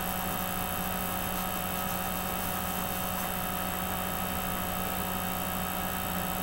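Steady electrical hum and hiss from the recording setup: several constant tones over an even hiss, unchanging throughout.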